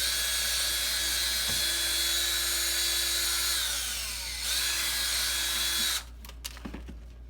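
Electric drill running at speed, its pitch sagging about three and a half seconds in as it slows under load, then picking back up before it cuts off suddenly about six seconds in. It is boring out holes for eye screws.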